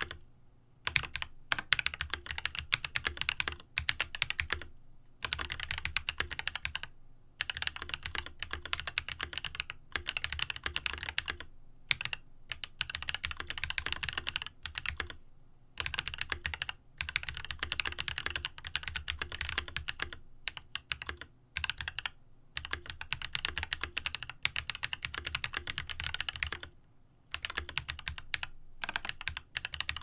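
Touch-typing on an Angry Miao Cyberboard Xmas Special custom mechanical keyboard with Ethereal Panda tactile switches and GMK Noel keycaps, set on a deskmat. Dense runs of keystrokes with short breaks every few seconds, the longest about 27 seconds in.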